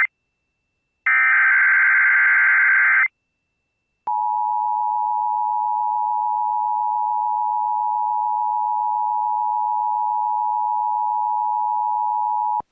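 Emergency Alert System tones opening an Amber Alert. About a second in, a two-second SAME header data burst screeches. After a second's silence, the EAS two-tone attention signal (853 and 960 Hz) holds steady for about eight and a half seconds and then cuts off sharply.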